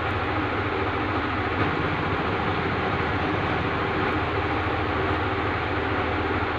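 A steady, unbroken rumbling, engine-like noise, even in level throughout.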